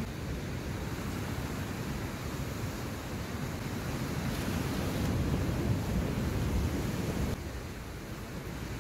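Ocean surf breaking and washing over shore rocks, mixed with wind rumbling on the microphone; the rush swells toward the middle and drops off suddenly near the end.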